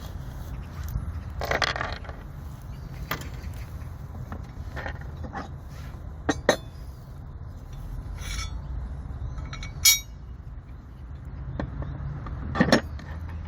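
Metal parts of a folding portable log splitter clinking, knocking and scraping as it is put together by hand. There is a scrape about two seconds in, then several sharp clicks, the loudest about ten seconds in and a pair near the end, over a steady low rumble.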